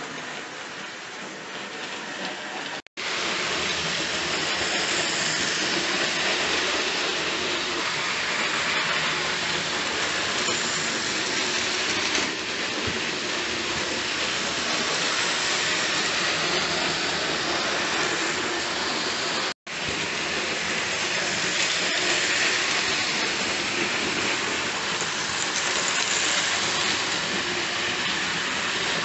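OO-gauge model trains running on the layout track: a steady whirring rattle of motors and wheels on rails, which cuts out for an instant twice.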